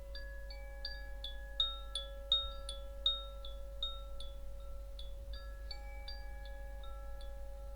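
Wind chime played by hand: frequent light strikes on tuned chimes at several pitches, each note ringing on and overlapping the next, the loudest strikes about two to three seconds in. A steady low hum lies underneath.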